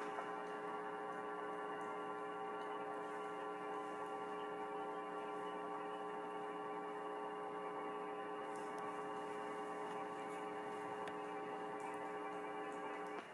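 Steady electrical hum with many overtones, unchanging throughout.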